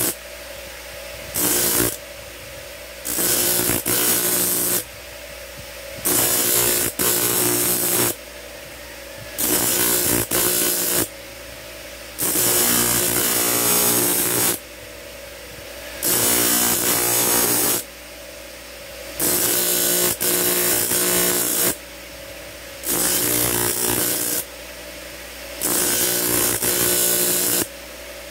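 A motor-driven grinding wheel spins steadily with a constant hum, while a small steel blank is pressed against it in repeated passes of one to two seconds. Each pass makes a loud, hissing grind, and between passes there is only the motor's hum.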